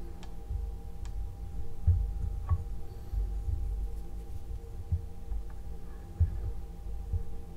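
Steady low hum with a few soft thumps and faint clicks as small chrome-plated steel sockets are handled and set down on a wooden table.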